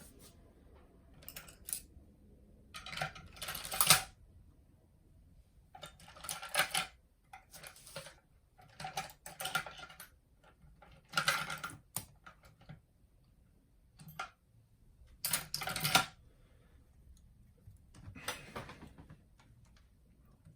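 A small screwdriver backing screws out of a mini boombox's chassis, heard as short scraping, clicking bursts every two seconds or so, with light clicks of small parts being handled.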